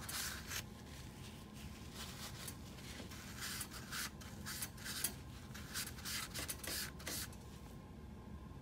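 Faint rubbing of a cleaner-dampened cloth rag on the metal gasket seat inside a print head housing: a run of short wiping strokes that stops about a second before the end.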